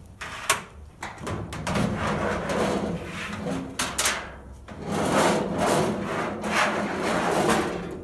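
Kenmore 90 Series dryer drum being slid forward out of its sheet-metal cabinet: long scraping and rubbing of the drum and its felt seal against the cabinet, with a sharp knock about half a second in and another around four seconds.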